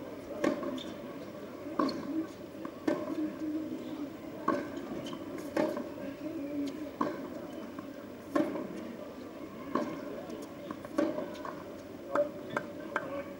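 A tennis rally on a hard court: sharp pops of rackets striking the ball, about one every second and a half, about ten in all, some louder and some fainter as the shots alternate between the near and far ends, over a low murmur of voices.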